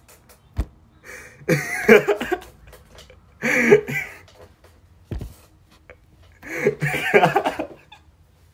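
A young man laughing hard in three breathless outbursts, with a couple of dull thumps in between.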